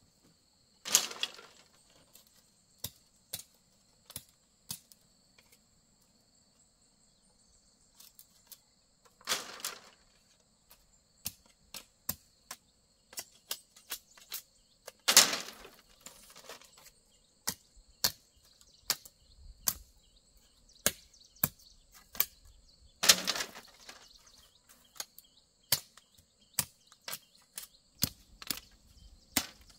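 Irregular sharp knocks and taps of bamboo being worked by hand, with a few louder, ringing strikes among them, over a steady high-pitched insect drone.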